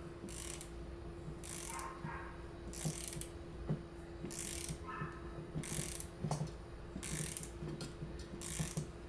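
Small socket ratchet clicking in short repeated back-strokes, about one every second and a half, as it turns off a 3/8-inch nut holding a bracket on a Holley 1940 one-barrel carburetor.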